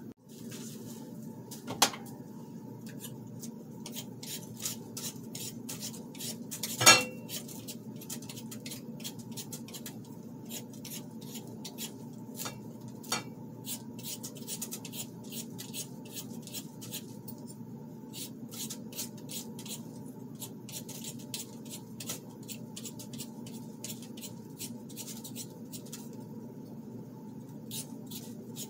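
Potatoes being peeled by hand: a steady run of short, quick scraping strokes, with a few sharper knocks, the loudest about seven seconds in.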